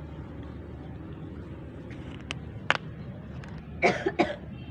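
A steady low hum, then two short coughs close together near the end, after a couple of faint clicks.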